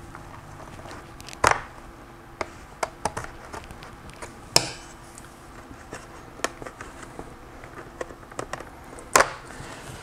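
Sharp plastic clicks and snaps, irregular and several seconds apart, as a pry tool and fingers work the bottom cover of an Asus Vivobook X712J laptop loose from its chassis. The loudest snaps come about a second and a half in and again near the end.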